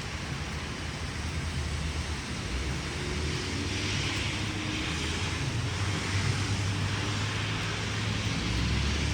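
A motor vehicle engine running steadily with a low hum that grows stronger near the end, and the rush of a passing vehicle swelling and fading about three to six seconds in.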